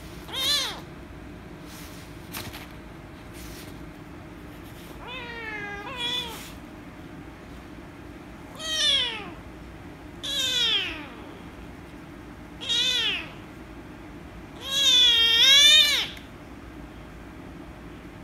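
Young rescue kitten meowing loudly and repeatedly while being petted: about six rising-and-falling calls a few seconds apart, the last one the longest. The title takes the meowing for anger at being petted.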